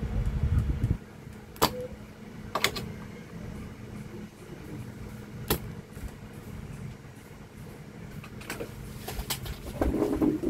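Desoldering work on a circuit board with a soldering iron: a handful of sharp clicks and taps of metal on the board, spread out, over a steady low hum. A dull rumble of handling comes in the first second and a brief rustle of handling near the end.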